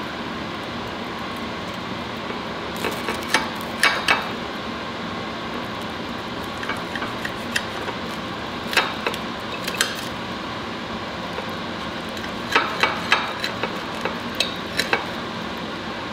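Knife and fork cutting through a crusty stuffed garlic bread on a ceramic plate: scattered clusters of sharp clicks and scrapes as the metal meets the plate, over steady background noise.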